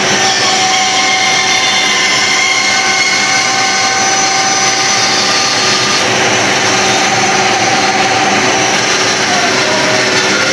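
A Numatic vacuum extractor running steadily, drawing dust from an Axminster Craft bench bandsaw whose blade is cutting a curve through an inch-thick board.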